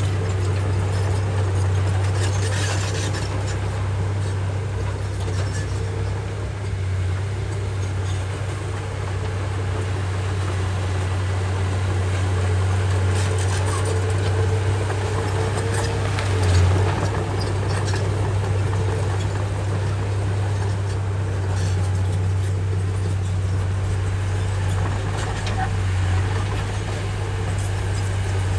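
Komatsu bulldozer's diesel engine running steadily while the dozer pushes topsoil: a continuous low drone, with a faint whine over it during the first third and a brief swell in level about halfway through.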